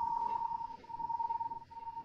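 A steady, high-pitched pure tone held throughout, with a few brief dips in its second half, over a faint low rumble.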